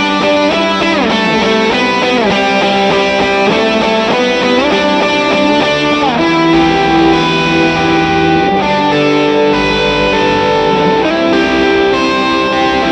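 Electric guitar played through an SSD 92 Drive overdrive pedal. It plays a lead line with string bends and slides, then settles into longer sustained notes from about halfway through.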